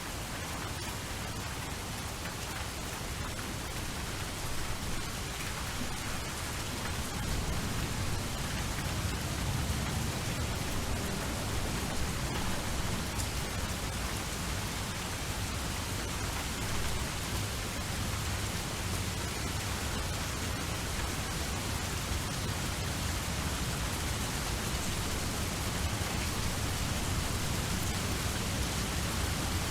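Steady rain falling, an even hiss of drops with a low rumble beneath it, rising slightly in level after the first few seconds.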